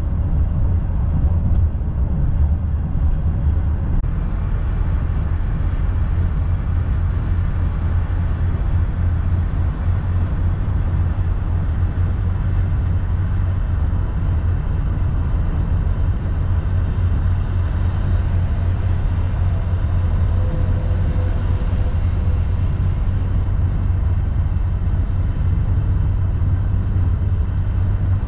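Steady low road and tyre rumble of a car cruising at highway speed, heard from inside the cabin.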